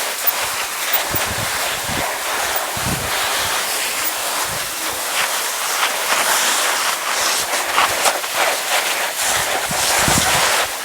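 Steady rush of wind buffeting the microphone, with scattered short crunches and clatters over it.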